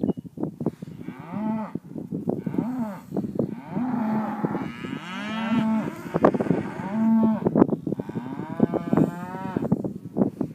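Cattle mooing again and again, a run of long calls that rise and fall in pitch, some overlapping one another.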